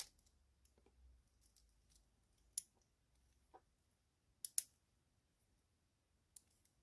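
A few small, sharp clicks of hard plastic and metal parts as a model locomotive chassis is handled and its underframe eased apart, with a close pair of clicks about halfway through.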